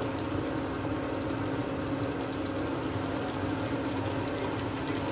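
Ground chili sambal frying and bubbling in oil in a wok, over a steady hum from the induction cooktop.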